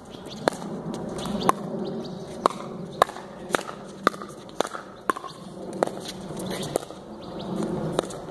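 A pickleball rally: paddles hit the hard plastic ball again and again, a sharp pock about every half second to a second, around ten hits in all.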